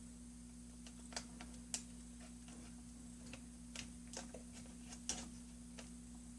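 Faint, irregular small clicks and taps as a laptop's LCD cable connector is handled and lined up to plug into its socket, over a steady low hum.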